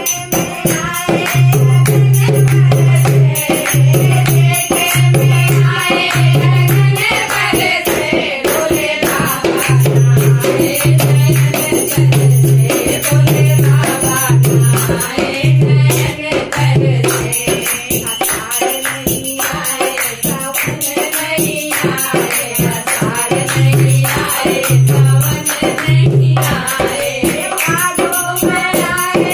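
A group of women singing a Hindi devotional bhajan together, accompanied by a dholak drum beaten in a steady rhythm and hand clapping.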